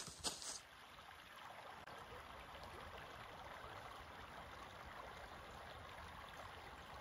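A single footstep crunches in dry leaves at the very start, then a shallow creek trickles faintly and steadily.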